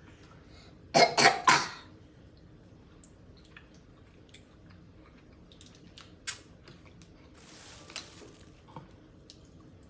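A person coughing three times in quick succession about a second in. After that, faint scattered clicks and cracks of snow crab shells being picked apart by hand.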